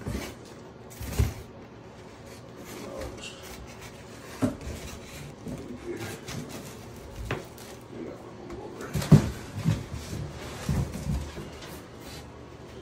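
Cloth bag rustling and knocking against a cardboard shipping box with a foam liner as it is handled and pulled open, with a scatter of short thumps, the loudest about a second in and about nine seconds in.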